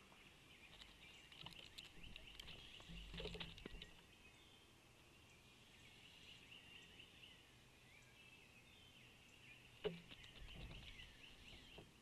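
Faint chorus of small birds chirping and trilling in quick, high notes, with a few soft knocks about three seconds in and one sharp knock about ten seconds in.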